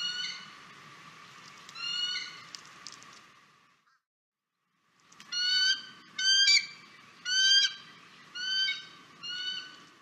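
Bald eagle calling in high, whistled notes that rise in pitch. Two calls come near the start, then there is a short silence, then five calls in quick succession over a faint steady hiss.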